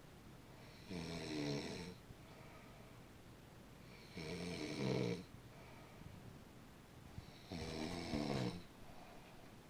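Snoring during sleep: three snores about three and a half seconds apart, each lasting about a second.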